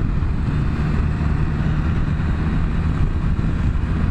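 Can-Am Spyder F3's three-cylinder engine running steadily while riding, under a steady rush of wind and road noise.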